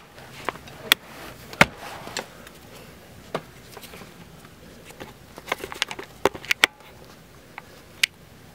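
Scattered sharp clicks and knocks of hands handling and repositioning the camera and moving about under the van, with a quick run of them about five to seven seconds in.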